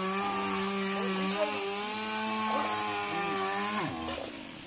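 Small two-stroke power-tool engine running steadily at high revs, then dropping in pitch and winding down near the end.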